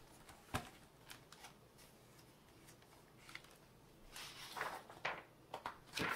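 Paper picture book being handled and its pages turned: rustling paper with a few light taps and clicks, a sharper click about half a second in and another near the end.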